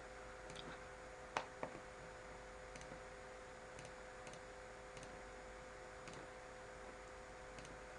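Computer mouse button clicks, a few scattered single clicks with the clearest about a second and a half in, over a faint steady electrical hum.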